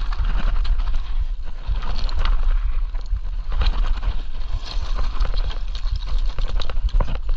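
Electric mountain bike rattling down a rocky dirt trail: tyres crunching over stones and the frame and chain clattering in quick, uneven knocks, over a heavy rumble of wind on the camera microphone.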